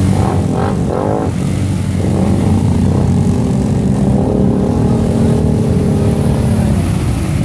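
Quad bike (ATV) engines running and revving under load as the quads push through deep, muddy creek water. There are several quick rising revs in the first second or so, then a steadier engine note.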